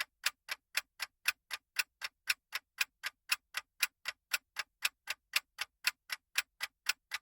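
Ticking clock sound effect of a countdown timer, sharp even ticks about four a second.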